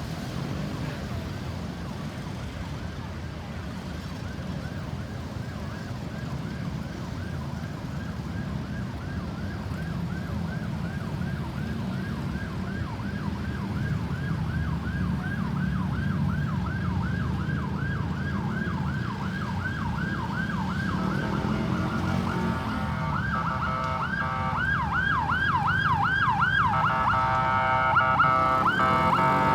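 Ambulance electronic siren in yelp mode, rapid rising-and-falling sweeps about three a second, growing louder as it approaches over a low traffic rumble. About 23 seconds in, a louder siren sound takes over, with steady tones alongside the sweeps.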